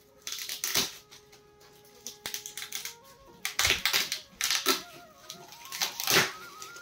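Shiny gold gift-wrapping paper crinkling and tearing as a wrapped picture frame is opened by hand. The crackling comes in irregular bursts, loudest at about three and a half seconds and again at about six seconds. Faint held music notes sound underneath.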